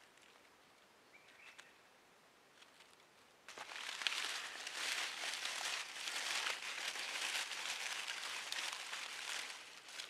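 Dry leaves crushed and rustled by hand in a stone fire ring as tinder: a dense crackle that starts suddenly about a third of the way in and fades just before the end, after a few faint clicks of twigs being laid.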